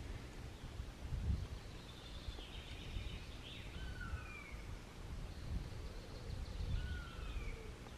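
Quiet woodland ambience with birds calling: two pairs of short, falling whistled notes and some higher scratchy chatter, over a faint low rumble.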